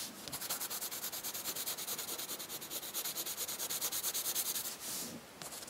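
Graphite pencil hatching on drawing paper: rapid, even back-and-forth strokes, several a second, pressed hard to lay in the darkest shadow. The strokes break off briefly near the end.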